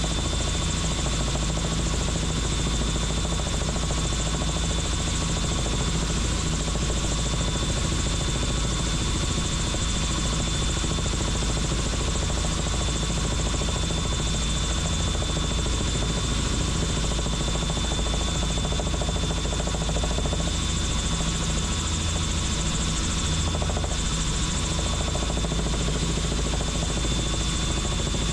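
Helicopter in flight: steady, unbroken rotor and engine noise, with a thin high-pitched whine held steady above it.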